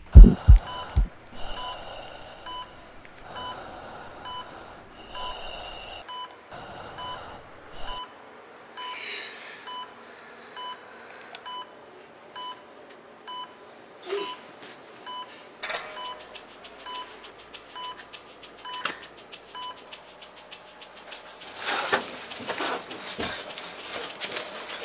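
A heart-monitor beep repeating steadily about every two-thirds of a second, just after the last of several heartbeat thumps. A little past halfway the beeping gives way to a fast, dense clicking rattle.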